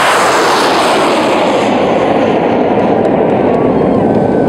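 Rocket motor exhaust noise just after liftoff: a loud, steady rush whose hiss dulls from about halfway through as the rocket climbs away.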